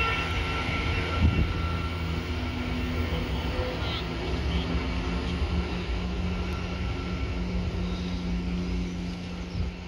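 Train running past with a steady low drone.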